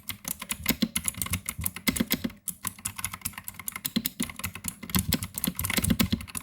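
Fast typing on a mechanical keyboard: a dense, continuous run of key clacks that grows busier and louder near the end.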